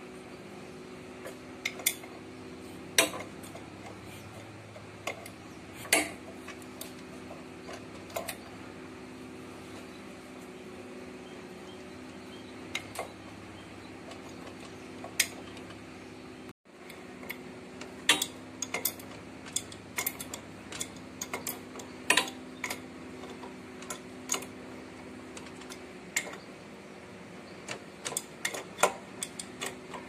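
Wrench and steel bar clinking against the primary sprocket and clutch of a JAWA motorcycle engine as the sprocket nut is tightened: irregular sharp metal clinks over a steady low hum.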